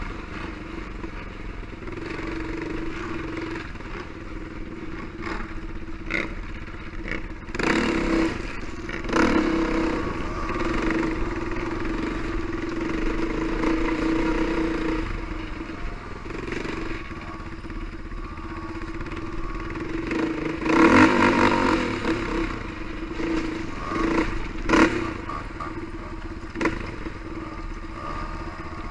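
ATV engine running steadily while riding a dirt trail, with several short, louder bursts of clatter and noise.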